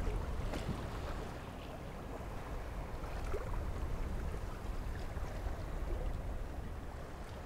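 Sea ambience of a boat under way: water rushing and splashing with a deep rumble and small scattered splashes, slowly fading out.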